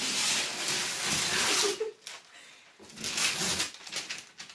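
Wrapping paper being torn and rustled off a cardboard gift box, in two spells of crackling: one about two seconds long at the start, a second shorter one after a brief pause.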